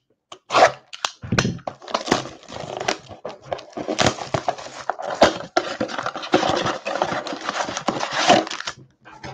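Plastic shrink wrap being slit with a box cutter and torn off a cardboard trading-card blaster box, crackling and crinkling for several seconds, with the box's cardboard flap being opened near the end.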